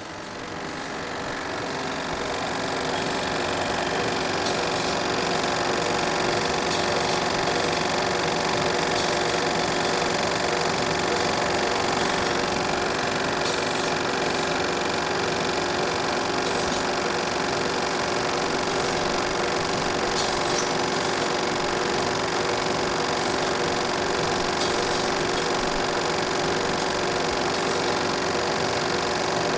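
Old cinema film projector running: a steady, fast mechanical clatter and whir from the film transport. It fades in over the first few seconds, then holds level.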